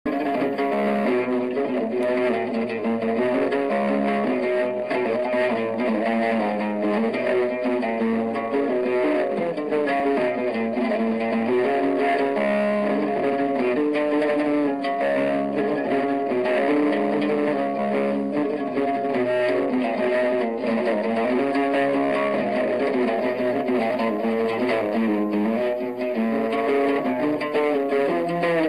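An oud being played: a continuous plucked melody of quickly changing notes with no pauses.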